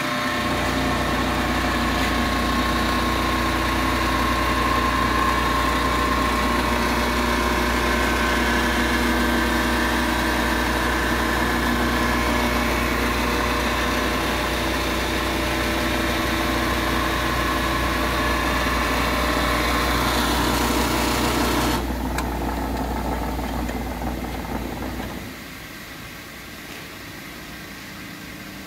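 Large double-ended pedestal grinder running steadily under power with no work on the wheels, a strong low hum under a steady whine. About three-quarters of the way through the whine drops off suddenly, and a few seconds later the hum falls away to a much quieter level.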